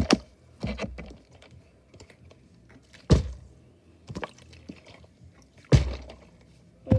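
Bottle-flip attempts: a plastic bottle with some liquid in it is tossed and thuds down on a surface. There are three loud thumps a few seconds apart, with lighter knocks and handling noise between them.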